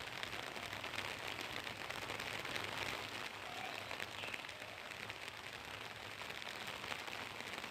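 Falling water: a steady, even hiss with a fine crackle of splashing.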